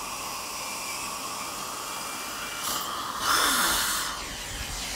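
Dental suction hissing steadily at the patient's mouth with a faint whine, and a louder slurping burst about three seconds in.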